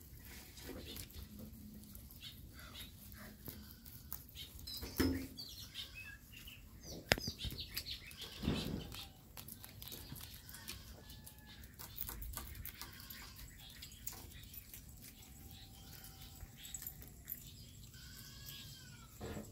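Rabbits chewing and tearing fresh green leaves close up: a continuous patter of small crisp crunching ticks, with a few louder leaf rustles.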